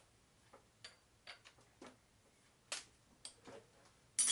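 Light irregular clicks and taps of small steel parts and tools being handled, ending in a louder, ringing metallic clink near the end.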